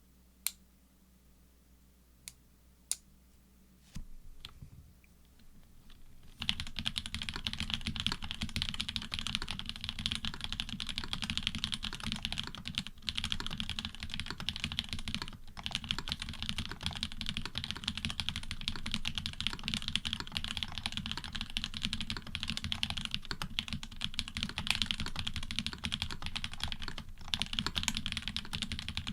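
Custom mechanical keyboard (Orion v2.5 with FR4 plate, plate foam and switch foam) with hybrid switches of Cherry bottom housings and Cream tops and stems, under GMK keycaps: a few single keystrokes, then steady fast typing from about six seconds in.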